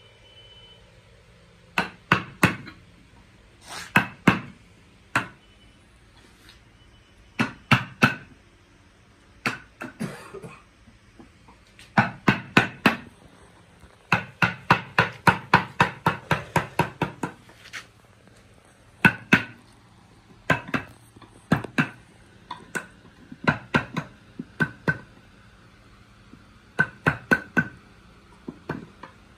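A wooden mallet striking a chisel into a hardwood workpiece, in short groups of two or three sharp knocks with pauses between, and a longer quick run of about four blows a second around the middle.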